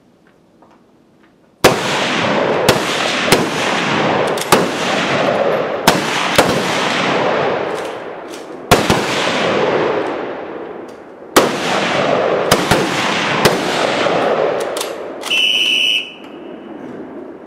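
Rifle fire from several shooters at once: a string of a dozen or more shots starting about two seconds in, each echoing and overlapping the next. Near the end, a whistle blast of under a second, the signal that the 15-second exposure is over.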